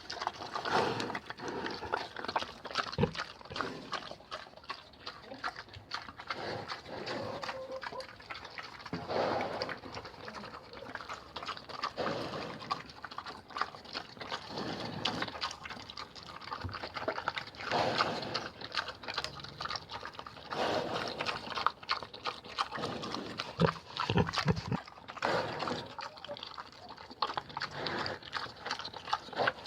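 A pig eating: chewing and smacking in irregular bursts.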